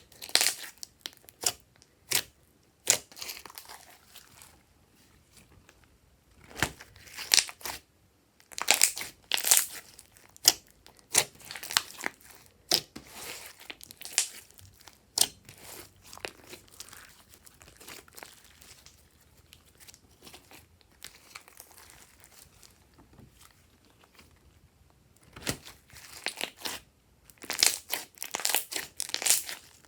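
Hands squishing, pressing and stretching glossy slime: irregular sticky clicks, pops and crackles in flurries, with a quieter stretch in the middle.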